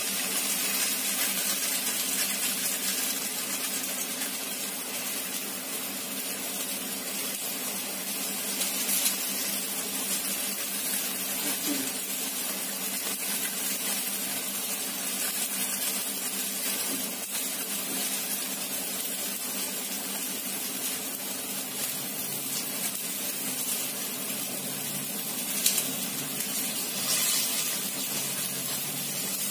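Eggplant and green beans cooking in a wok, giving a steady hiss like water running, with a few small knocks.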